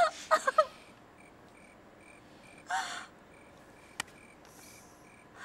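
A woman's short pained cries at the start and again a little before the midpoint, over crickets chirping steadily. A single sharp click comes about four seconds in.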